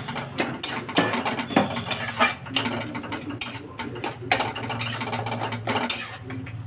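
Kitchen utensils clattering and scraping: irregular clicks and knocks, several a second, over a steady low hum.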